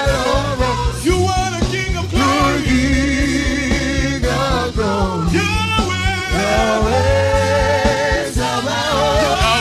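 Gospel worship music: voices singing with vibrato over a steady band accompaniment with bass and drums.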